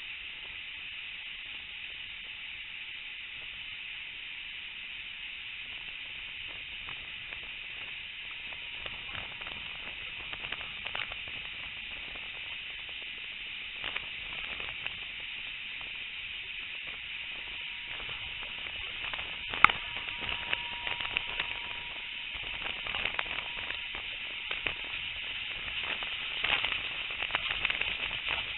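Steam-hauled passenger train running at speed, heard from an open carriage window: a steady rushing noise of wind and running gear, with scattered clicks and crackles. The clicks grow busier in the last third, and one sharp crack comes about two-thirds in.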